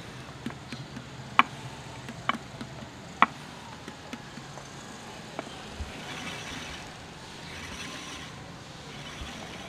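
Wooden paddle striking the outer wall of an unfired clay pot, beating it into shape: sharp, irregular taps, three of them loud in the first few seconds and fewer after. A faint scratchy noise follows in the second half.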